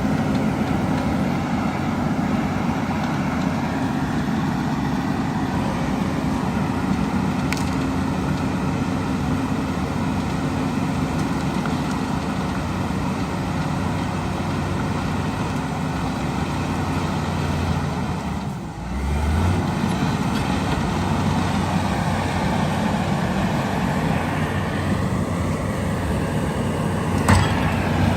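Heavy diesel earthmoving machinery, a front loader and bulldozer, running and working steadily. About two-thirds through the sound dips briefly, then a low engine note rises as the revs pick up again. A single sharp knock comes near the end.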